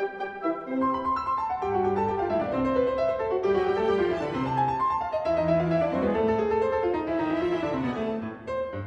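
Instrumental background music in a classical style, a melody of held notes over a keyboard accompaniment.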